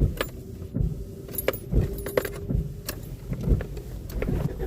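Keys jangling and irregular clicks at a car's ignition and controls, with a brief steady hum about a second and a half in.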